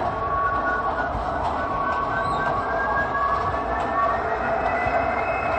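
Model trains running on the layout: a steady rumble with a high whine that slowly rises in pitch.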